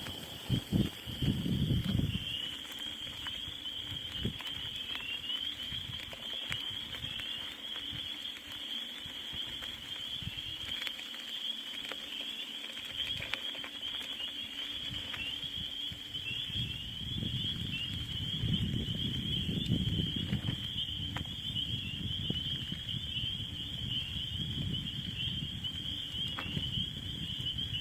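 Swamp ambience: a continuous high-pitched chorus of rapid trilling calls, with low rumbling in the first couple of seconds and again for several seconds past the middle.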